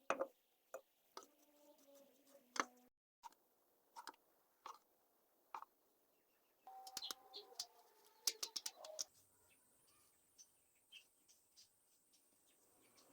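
Faint, scattered clicks and taps over quiet room tone. A thin, steady high tone comes in about nine seconds in.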